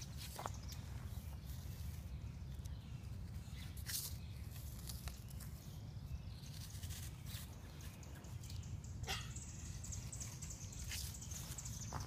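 Small plastic toy shovels scraping and tapping in sand, scattered short scrapes and clicks over a steady low wind rumble, with a few brief high squeaks.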